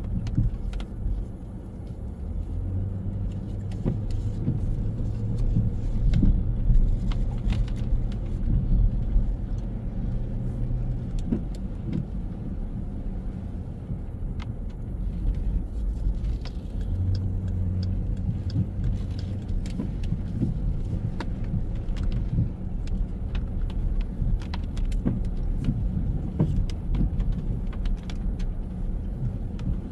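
City street traffic: cars passing with a steady low rumble, and an engine humming in two stretches, with scattered light clicks over it.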